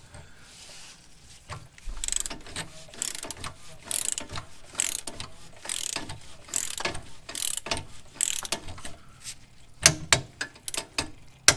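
Click-type ratchet torque wrench ratcheting in repeated strokes as it tightens the oil filter housing to 222 inch-pounds. A few sharper, louder clicks come near the end.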